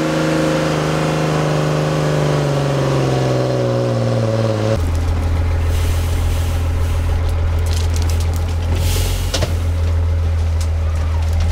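Off-road trial truck engine working under load, its note slowly sinking in pitch for the first few seconds. It then gives way abruptly to a deeper, steady engine note with scattered knocks and rattles.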